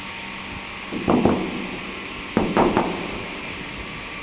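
Knocking and rattling from handling the dusty car cabin air filter just taken out: two quick knocks about a second in, then three more a little over a second later, over a steady hiss.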